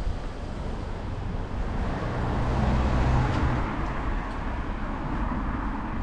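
A car passing close by on the street, its tyre and engine noise swelling to a peak midway and then fading as it draws away.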